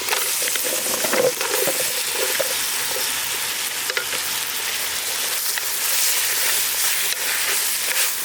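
Cut brinjal, potato and carrot tipped into hot oil in a clay pot, sizzling at once, while a ladle stirs them with short knocks in the first couple of seconds.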